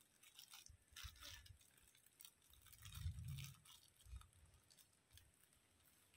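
Faint crackling and crunching of dry leaves and twigs, scattered short clicks, with a low muffled thump about three seconds in.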